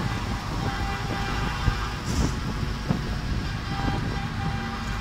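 Heavy trucks passing slowly by, their diesel engines running with a steady low rumble, with a few short knocks and a brief hiss along the way.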